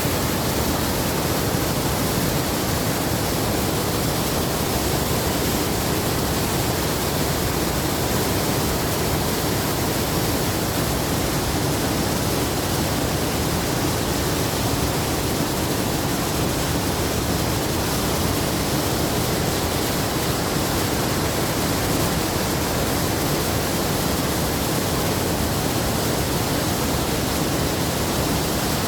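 Glacier-fed waterfall crashing down, a loud, steady, unbroken rush of water.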